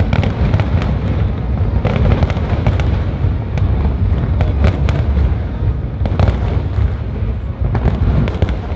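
Aerial fireworks display: a rapid, continuous series of sharp cracks and shell bursts, several a second, over a steady low booming.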